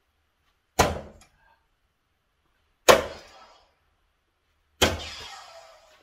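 Three soft-tip darts (Target Paul Lim Gen 4, 20 g tungsten) thrown one after another into a Gran Board 3s electronic dartboard, each landing with a sharp knock, about two seconds apart; the third hit has a longer tail.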